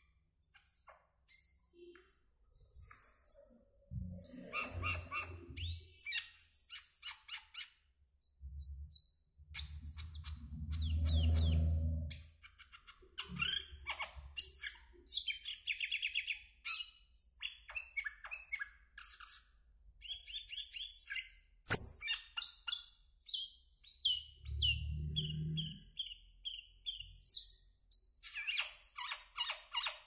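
Asian glossy starling singing a busy, varied run of chirps, squeaky whistles and rapid twittering notes. A few low droning sounds come and go under the song, the loudest around the middle, and there is one sharp click a little past two-thirds of the way through.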